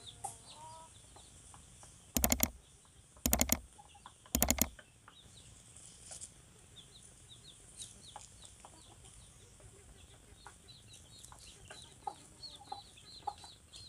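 Chickens clucking, with faint high chirping going on throughout. About two seconds in come three short loud noises, a second apart, louder than anything else.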